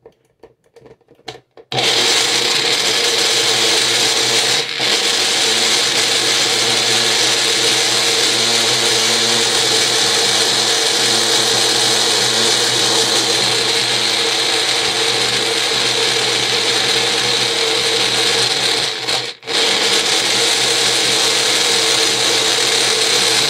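Electric blender running at full speed, puréeing carrots, apple and fresh ginger with water into juice. It starts about two seconds in, dips for a moment soon after, and cuts out briefly near the end before running again.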